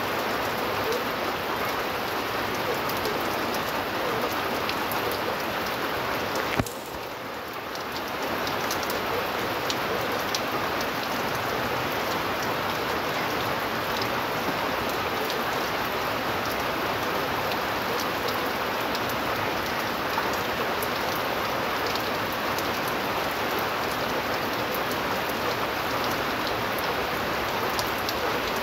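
Heavy typhoon rain falling steadily on a wet concrete yard and the thatched roof overhead. The level drops briefly about seven seconds in.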